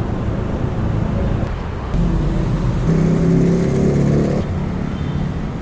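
Road traffic: a motor vehicle's engine running with steady low rumble. About three seconds in, a louder pitched engine drone rises over it for a second and a half, then fades back.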